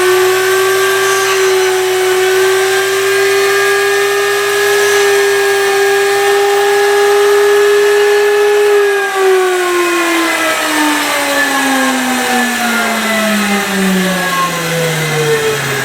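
Skate-sharpening machine's grinding wheel motor running at a steady whine, then switched off about nine seconds in and spinning down, its pitch falling smoothly.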